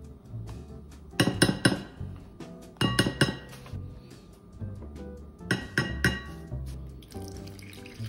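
Wooden spoon knocking against a glass mixing bowl in three quick bursts of clinks, as wheat flour and potato starch are spooned in for tempura batter. Background music runs underneath.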